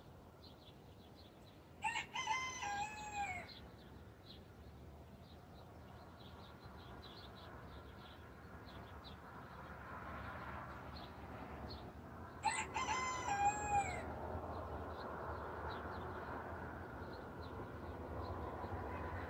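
A rooster crowing twice, about ten seconds apart, each crow about a second and a half long and dropping in pitch at the end. Faint short chirps repeat in the background.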